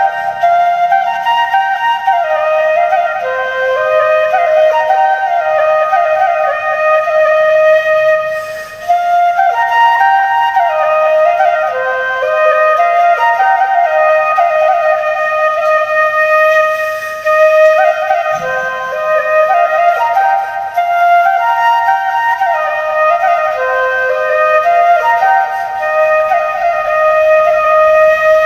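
Bansuri (Indian bamboo flute) playing a dhun, a solo melody that steps and slides between notes. The phrases break briefly about nine and eighteen seconds in.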